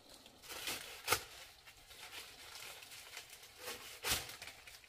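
A few sharp knocks and rustles, the loudest about a second in, with two more near the end.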